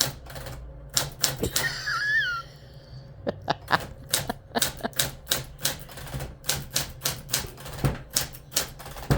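Vintage manual typewriter being typed on one key at a time: sharp clacks of the typebars striking in an uneven hunt-and-peck rhythm, settling into about two to three strikes a second. A short, high, wavering squeak about two seconds in.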